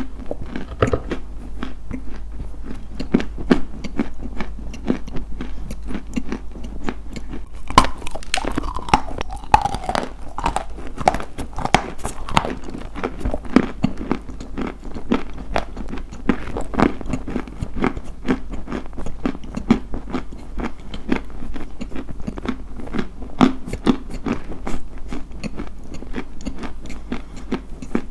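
Close-miked crunching bites and chewing of something hard and brittle, a dense, continuous crackle of small cracks.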